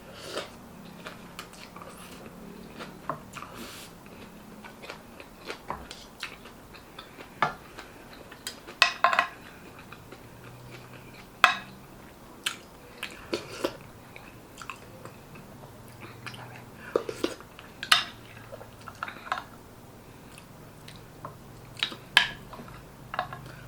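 Close-miked chewing and mouth sounds of a person eating beef shank soup, with short, sharp clinks of a spoon and fork against dishes every few seconds.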